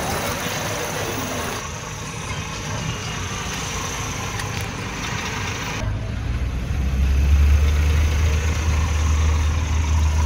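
A car driving through a flooded street: water rushing and splashing against the car, then about six seconds in the sound changes abruptly to a steady low engine drone heard inside the cabin.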